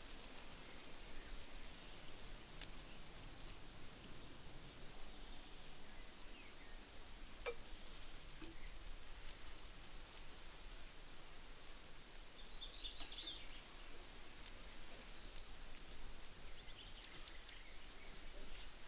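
Quiet outdoor ambience with a few birds chirping now and then, including a quick run of chirps around the middle and another near the end, and a few faint clicks.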